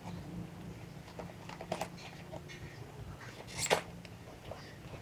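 Funko Mystery Minis cardboard blind box being torn and pulled open by hand: scattered crinkles and rustles of paper and card, with one louder crackle about three and a half seconds in.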